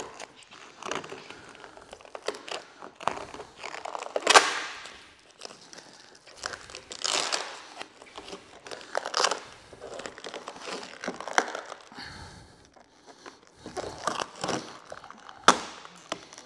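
Paint protection film being peeled off a truck's hood by hand: the clear plastic film crinkles and crackles in irregular bursts as it lifts off the paint and bunches up, with a sharper, louder crackle about four seconds in and another near the end.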